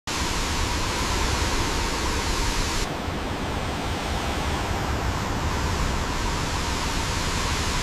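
Steady rushing of a waterfall, an even full noise; it turns slightly duller about three seconds in.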